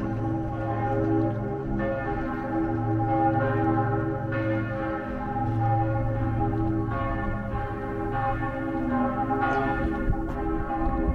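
Church bells ringing, a new stroke a little more often than once a second, each ringing on into the next.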